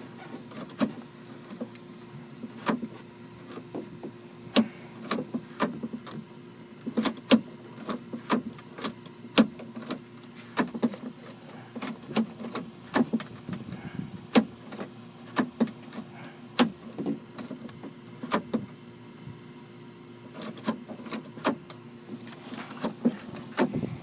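Irregular clicks and light knocks from hands working a car door's handle linkage rod and plastic door parts, over a steady low hum.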